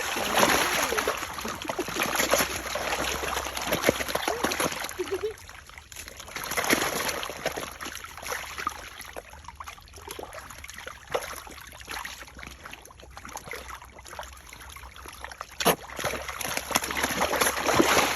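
Water splashing and trickling in irregular bursts, louder for the first few seconds, with one sharp splash about three-quarters of the way through and more splashing near the end.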